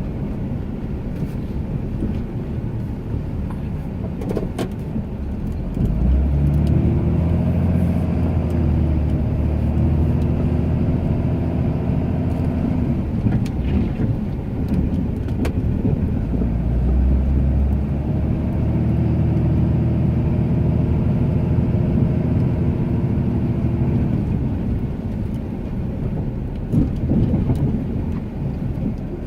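Ram 2500 pickup's engine running while plowing snow. It speeds up twice, holding higher for several seconds each time before dropping back, as the truck works the snow.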